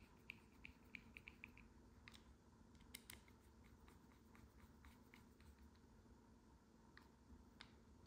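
Faint clicking of a screwdriver turning a screw into a gear knob assembly: a quick run of small clicks in the first second and a half, then a few scattered ticks.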